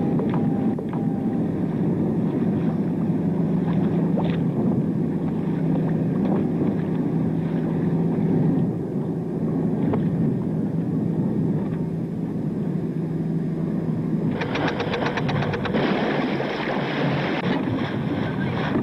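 Motorboat engines running steadily with a low hum; near the end the sound changes to a harsher, rapidly pulsing engine noise.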